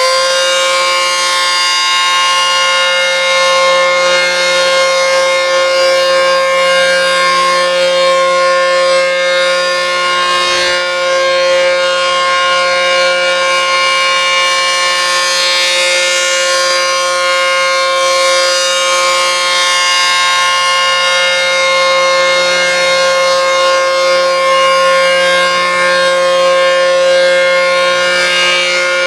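Coded ACA P-15 outdoor warning siren sounding its Alert signal: a loud, steady tone held at full pitch.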